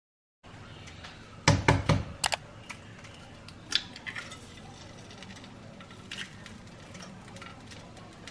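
An egg being cracked open into a frying pan: several sharp knocks and clinks in quick succession about a second and a half in, another near four seconds, then the egg dropping into the oiled pan.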